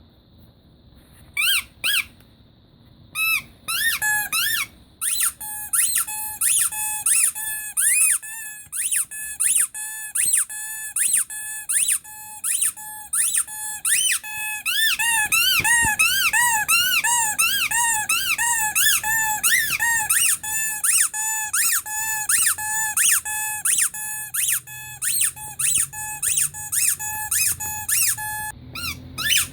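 Rubber teddy-bear squeaky toy squeezed over and over: a long run of short, shrill squeaks, about two or three a second, some rising and falling in pitch. The squeaking starts about a second and a half in.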